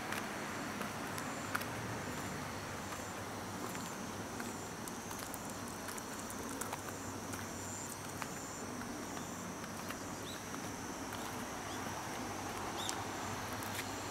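Autumn field insects chirping: a steady high thin trill with a pulsing chirp above it, over an even outdoor hiss. Scattered light clicks, and a few short rising chirps near the end.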